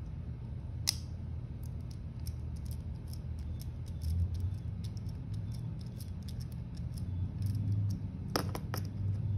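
Small screwdriver backing out the flathead grip screw of a Bond Arms derringer: faint, repeated ticks and scrapes of the blade turning in the screw head, with a sharper click about a second in and a few more near the end. A steady low hum runs underneath.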